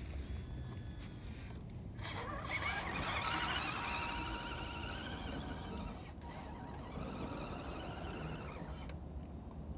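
Axial SCX10 RC crawler's electric motor and gears whining, wavering in pitch, as it drives through snow pushing its plow. The whine is loudest from about three seconds in until shortly before the end.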